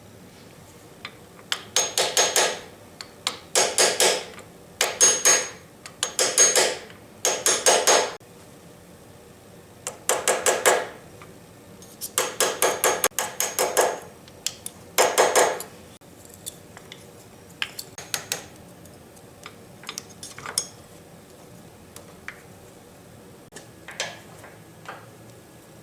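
A hammer tapping on metal in repeated bursts of several quick blows, about eight bursts over roughly fifteen seconds, then only scattered light clicks and taps.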